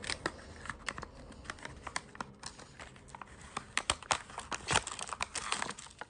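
Hands opening a small cardboard-and-plastic package of plastic closet dividers: a run of irregular small clicks and crinkles as the packaging is handled and pulled apart.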